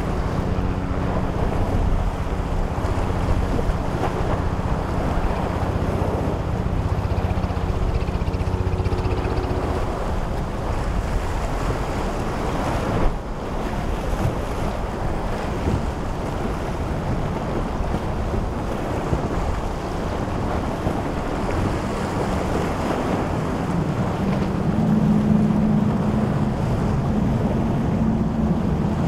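Powerboat engines running as boats pass through the inlet, over the wash of waves and surf, with wind buffeting the microphone. The engine hum is clearest for the first ten seconds, then gives way to the water and wind, and comes back with a rising pitch near the end.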